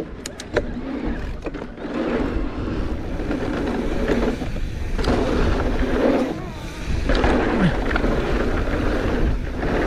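Mountain bike riding a dirt trail: a steady rush of tyre and wind noise that swells and dips, with a few sharp clicks from the bike about half a second in.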